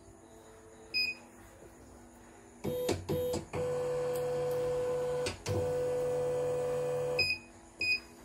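CNY E900 computerised embroidery machine beeps once, then its motors run with a steady whine for about four and a half seconds, stopping briefly a few times, and it beeps twice more near the end.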